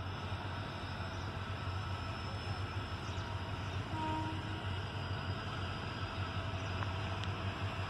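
Steady low rumble of twin WDG4 (EMD GT46MAC) diesel-electric locomotives working a loaded goods train as it departs, heard from a distance with no train in view.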